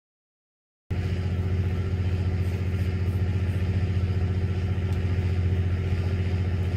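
Silence for about the first second, then a fishing boat's engine running steadily with a deep, even hum.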